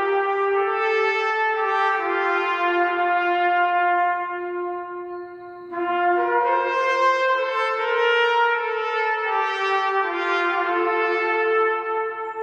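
A slow melody played on a brass instrument. Its long held notes ring on and overlap in the echo of a vaulted stone gallery. The phrase pauses about five seconds in and resumes a second later.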